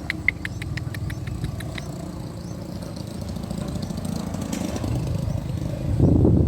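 Bird chicks begging: a rapid series of short high chirps, about eight a second, fading out within the first two seconds. Under it runs a steady low rumble that grows louder near the end.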